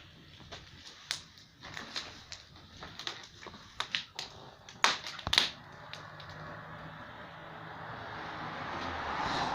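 Wood fire crackling, with irregular sharp pops and clicks, the loudest about halfway through. A rushing noise swells over the last few seconds.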